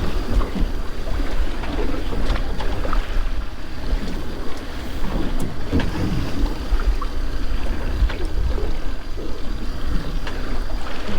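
Wind buffeting the microphone over waves and water sloshing against a small boat at sea, with scattered small knocks.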